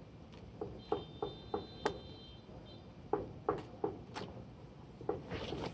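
Faint, irregular light clicks and taps, about a dozen, the sharpest just under two seconds in, with a faint thin high steady tone in the first half.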